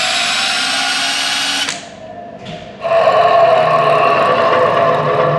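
A cordless drill spinning the shaft of a Hyundai Ioniq electric drive motor on the bench: a steady, loud whine that cuts off about two seconds in. After a short gap, a second steady whine starts, the same motor spun before its repair, with the noise it then had.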